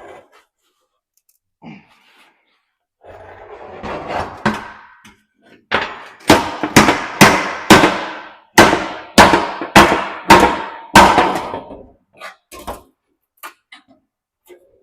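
Series of hammer blows on a metal part, about ten sharp strikes at roughly two a second in the middle of the stretch, each ringing briefly, after a few lighter clunks.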